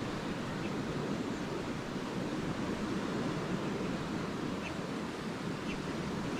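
Lake waves washing steadily onto a beach, a continuous even rush. A few faint, short bird chirps sound above it, about half a second in and twice near the end.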